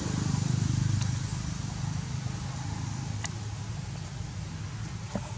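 A low, steady engine hum, loudest in the first second and slowly fading away, with a few faint sharp clicks over it.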